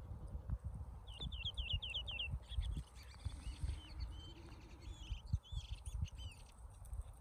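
A small bird singing: a quick run of about eight falling high notes, then a looser string of varied chirps and short whistles. Low thumps and rumble sit underneath throughout.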